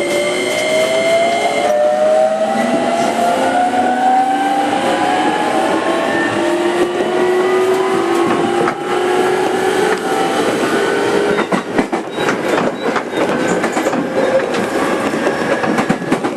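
Inside a JR 205 series 5000-subseries motor car, its VVVF inverter and traction motors whine in several tones that rise steadily in pitch as the train accelerates. Wheels click over rail joints from about two-thirds of the way in.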